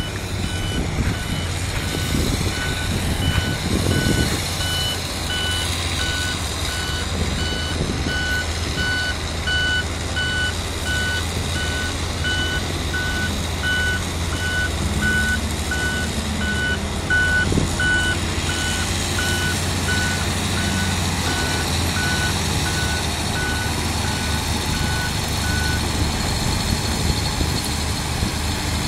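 Reversing alarm of a Volvo A35C articulated dump truck beeping in a steady repeating pattern as the truck backs up, stopping near the end. Underneath is the continuous low diesel rumble of the truck and the Komatsu PC300 excavator working.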